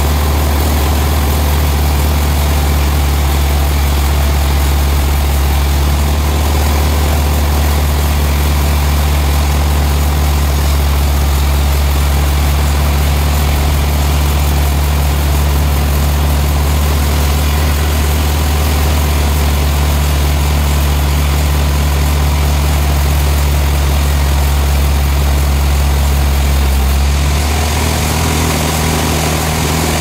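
Large vertical band sawmill running steadily while sawing a trembesi (rain tree) slab, a loud continuous machine hum with a strong low drone. Near the end the drone drops and its pitch shifts.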